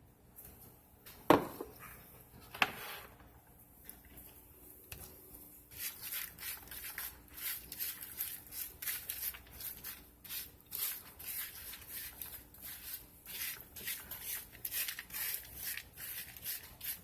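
Two sharp knocks, then a spoon stirring and scraping rolled oats in a bowl in quick repeated strokes, coating them with melted butter and honey.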